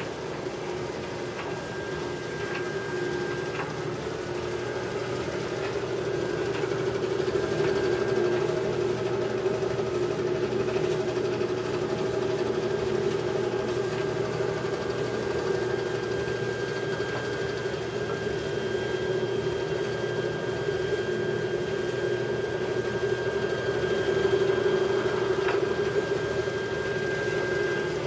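1974 Whirlpool portable dryer running, its drum turning on the belt, with a steady vibrating hum and a thin high whine. The vibration comes from a bad idler pulley.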